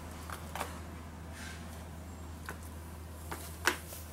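A few light clicks and taps of flip-flop footsteps on a concrete floor and a plastic two-step stool being sat on, the sharpest knock near the end, over a low steady hum.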